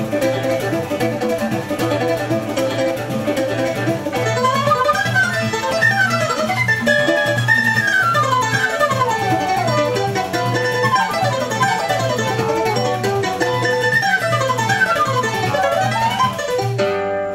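Choro played live by a flute, mandolin, acoustic guitar and pandeiro, with the flute leading in fast runs of notes up and down over the plucked strings and the pandeiro's steady beat. Near the end it closes on held notes.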